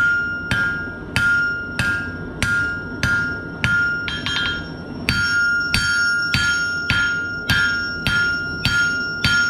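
Hand hammer striking hot steel on the edge of an anvil in a steady rhythm, about one and a half blows a second, the anvil ringing clearly after each blow, with a short break and a few lighter clinks around four seconds in. This is blacksmith forging, drawing down the neck between a leaf's stem and blade.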